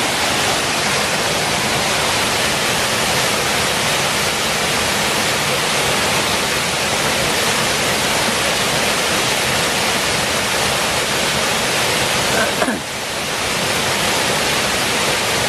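Waterfall rushing: a steady, loud wash of falling water that dips briefly about three-quarters of the way through.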